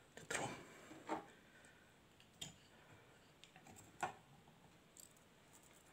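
Four faint, sharp clicks a second or so apart, with a few fainter ticks between, from a high-voltage flyback test rig's clip and leads being handled.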